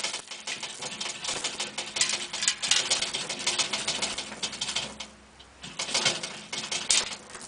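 Hand-operated chain fall (manual chain hoist) being worked to lower a heavy load: a rapid metallic clatter of chain running through the hoist. It stops about five seconds in and comes back briefly near the end.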